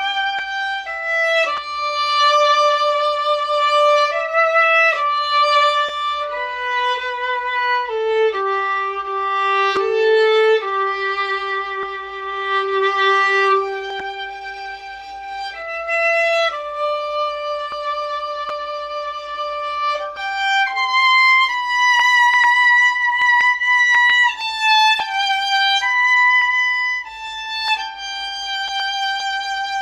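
Solo violin playing a slow melody of sustained notes, one line at a time, with a long low note held for several seconds about eight seconds in.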